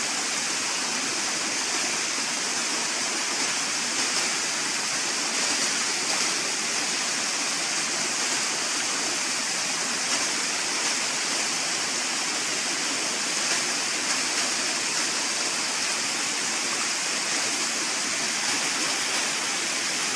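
A rocky stream rushing and splashing over and between boulders in small cascades: a steady, unbroken rush of white water.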